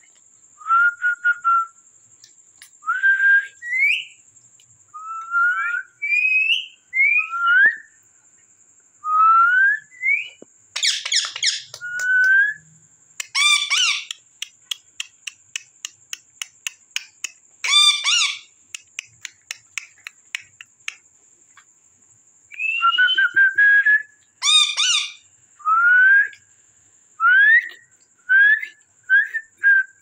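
Indian ringneck parakeets calling: a string of short, rising whistled notes, broken by a few harsh screeches, with a run of quick clicks in the middle. A faint steady high-pitched tone lies under it all.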